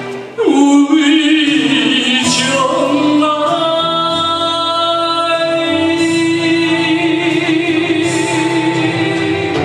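A man singing into a microphone over a karaoke backing track. About four seconds in he settles into a long held note with vibrato, near the end of the song.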